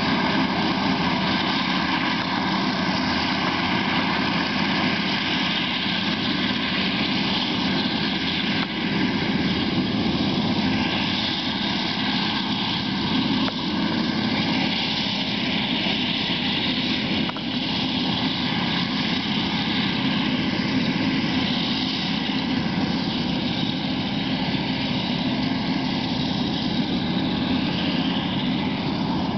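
Claas Jaguar 970 self-propelled forage harvester working at full load chopping maize, a steady heavy-machinery drone with a steady whine running through it, alongside a John Deere tractor pulling the trailer that it fills.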